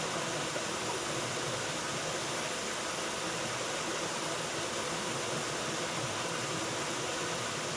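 Waterfall: a steady, even rush of falling water that holds unchanged throughout.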